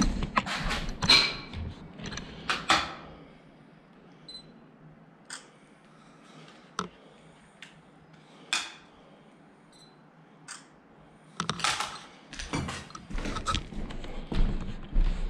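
Footsteps crunching and scuffing over a floor littered with broken glass and debris, with scattered clicks and knocks. Busy at first, then a few seconds of only isolated ticks, before heavier steps return near the end.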